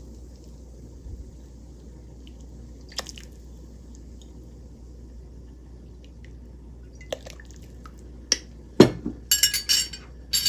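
Metal spoon and fish sauce bottle handled over a stainless steel stockpot: a few small clicks, then near the end a sharp knock followed by a quick run of ringing metallic clinks as the spoon strikes the pot.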